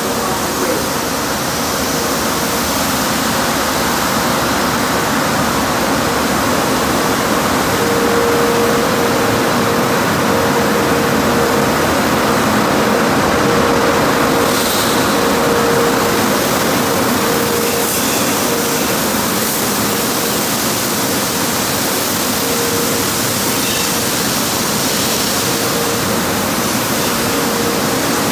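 Automatic tunnel car wash running: steady hiss of water spray and large rotating cloth brushes scrubbing a car, over a steady machinery hum.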